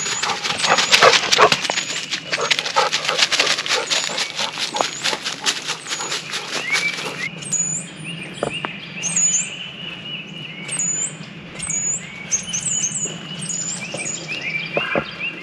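Dry fallen leaves crackling underfoot on a woodland trail, with a dog moving close by. From about halfway in, short high-pitched rising squeaks repeat about twice a second.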